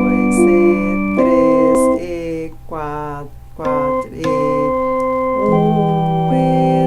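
Electronic organ playing a simple lesson piece in F major: a melody over held left-hand notes, chords changing every second or so, the notes wavering with vibrato about two to four seconds in.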